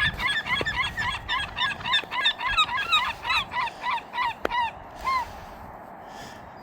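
A flock of geese honking, a quick run of short calls about three a second that stops about five seconds in.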